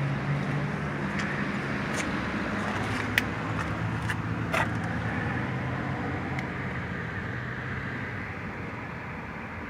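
A motor vehicle's engine running close by with a steady low hum that fades away over several seconds, over outdoor traffic noise, with a few sharp clicks in between.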